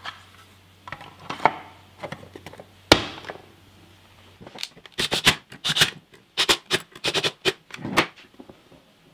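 Plastic case of a Hitachi battery charger handled on a wooden workbench: a few scattered clicks and knocks, the sharpest about three seconds in, then a quick run of rubbing strokes over the case from about halfway until near the end.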